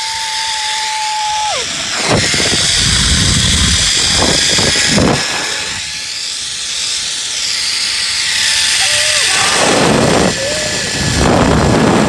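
Zipline trolley pulleys running along a steel cable, their whine rising and falling in pitch, with heavy wind buffeting the microphone in two long stretches, the first starting about two seconds in and the second near the end. A held high tone slides down in pitch about a second and a half in.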